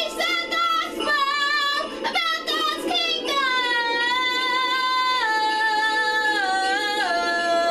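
A high female voice singing a slow melody over backing music, holding long notes that step down in pitch twice in the second half.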